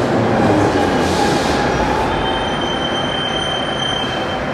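Vintage Ezh3 and Em-508T metro cars rolling and slowing over the rails, with continuous running noise. A thin, high, steady squeal sets in about two seconds in and stops shortly before the end.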